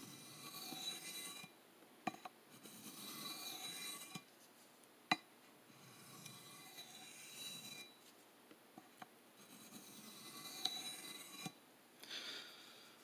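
Steel knife blade (CPM M4) drawn freehand across a wet 1200-grit DMT diamond plate, soft scraping in runs of a second or two with short pauses between, refining the edge. A single sharp click sounds a little past five seconds in.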